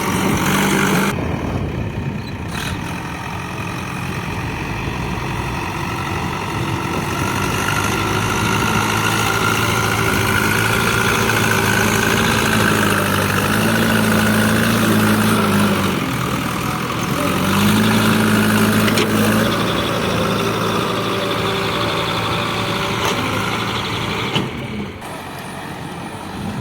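Heavy diesel engine running under load, its revs climbing and holding for several seconds, dropping, then climbing again briefly before settling back.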